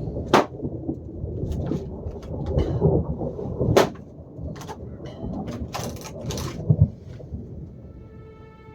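Rain falling with a low rumble, broken by sharp cracks and pops of a freshly lit wood fire. Music fades in near the end.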